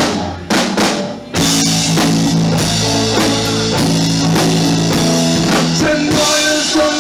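Live rock band of electric guitars, keyboard and drum kit: a few drum hits, then a full chord held and left ringing with a cymbal wash for several seconds, the way a song's final chord is sustained.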